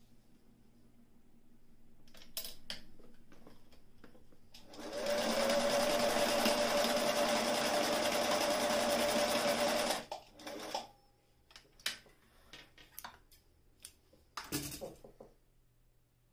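Singer 457 Stylist heavy-duty zigzag sewing machine running at a steady speed for about five seconds as it stitches through fabric, with a steady motor whine, then stopping abruptly. Before and after come short clicks and rustles as the fabric is handled and drawn out from under the presser foot.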